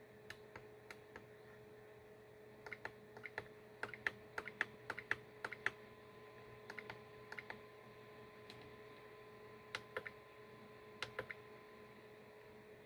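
Faint, scattered clicks of the buttons and switches on an Eachine ER8 radio transmitter being worked, some in quick runs, with no beeps in answer. The beeper is silent, a fault that came with a bad EEPROM. A faint steady hum lies underneath.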